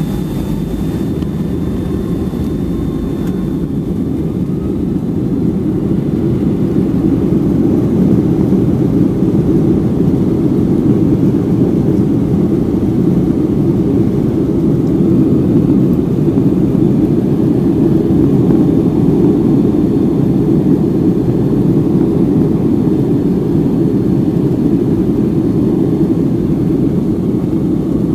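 Cabin noise of a Boeing 757-300 on its takeoff roll, heard through the fuselage from a window seat: a steady deep rumble of jet engines and runway, growing louder over the first several seconds as the aircraft accelerates, then holding steady.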